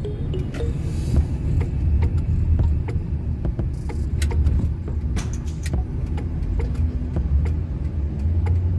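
Car driving on a road, heard from inside the cabin: a steady low rumble of engine and tyres, with scattered light clicks.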